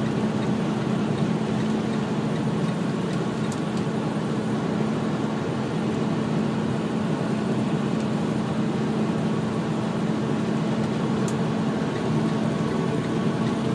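Steady engine drone and tyre-on-road noise inside a truck cab cruising at highway speed, with a constant low hum throughout.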